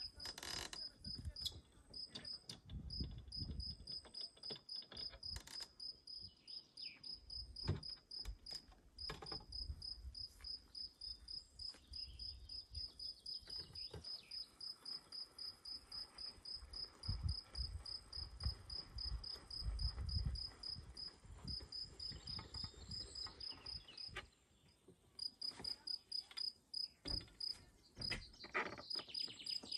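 A cricket chirping in a steady run of short, high chirps, about three a second, which breaks off for about a second near the end. Low rumbles and a few knocks sound underneath.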